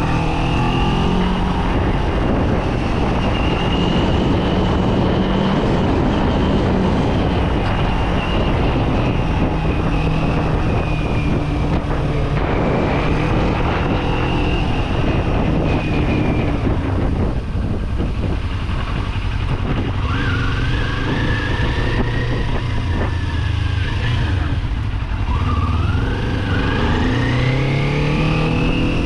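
Kawasaki Z400 parallel-twin engine running under way, its pitch holding fairly steady, easing off around the middle, then rising twice toward the end as the revs climb. Wind rush over the microphone runs underneath.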